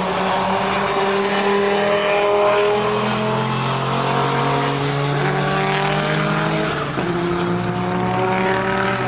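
Race cars' engines under hard acceleration on a circuit, their pitch climbing and dropping back at gear shifts, with more than one engine heard at once. The sound changes abruptly about seven seconds in.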